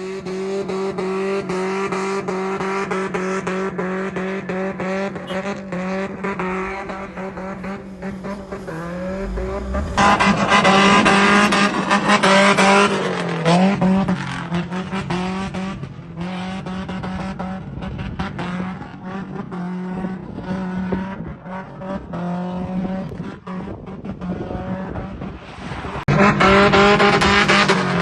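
Datsun engine held at high revs during a stunt run, with tyres squealing and skidding. It gets louder for a few seconds about ten seconds in and again near the end.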